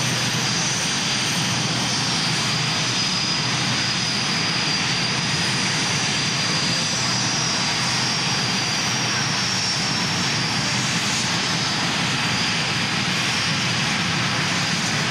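Canadair CT-114 Tutor jets taxiing past, their J85 turbojet engines running steadily with a high whine over a loud rush.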